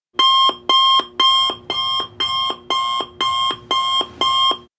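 Countdown timer's alarm-clock tone going off as the timer reaches zero: nine rings in quick succession, about two a second, then it stops.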